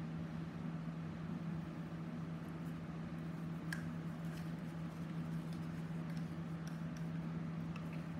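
Steady low hum of room tone, with a couple of faint clicks.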